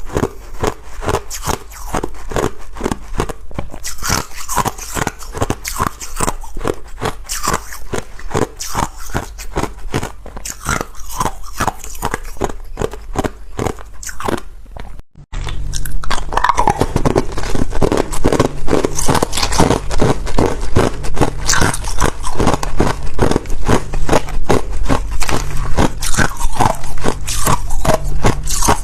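Ice being bitten and chewed, a continuous fast crunching and crackling. It breaks off briefly about halfway through, then resumes louder and denser.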